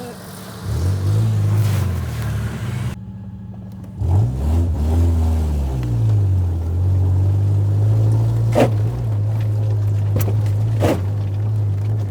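Car engine pulling away twice with its pitch rising, then running steadily at low revs, with two sharp knocks near the end.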